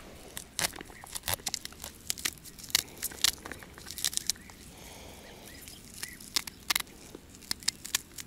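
Kernels of fresh young corn being stripped off the cob by hand, an irregular run of crisp snaps and crackles with a sparser stretch around the middle.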